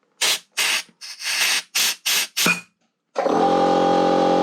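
About six short bursts of hissing noise, then a small power-tool motor runs steadily for about a second and a half and cuts off suddenly.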